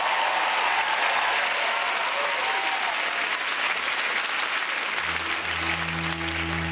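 Studio audience applauding. About five seconds in, the band comes in under the thinning applause with low, steady held chords that open the dance music.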